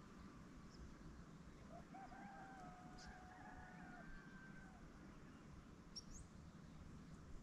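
Faint rooster crowing once, one long held call of about two seconds, over a near-silent rural background; a small bird chirps briefly near the end.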